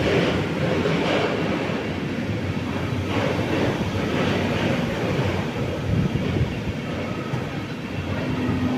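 A train running past on the track: a steady rumble of wheels on rail, with a few sharp knocks in the first three seconds.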